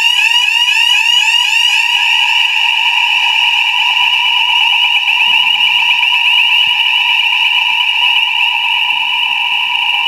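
Electronic fire alarm sounding continuously: a loud, high-pitched tone with a rapid, evenly repeating warble.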